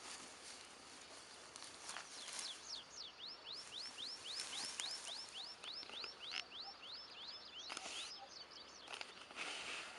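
A songbird singing a long, fast series of short rising whistled notes, about four a second, starting about three seconds in and stopping about two seconds before the end.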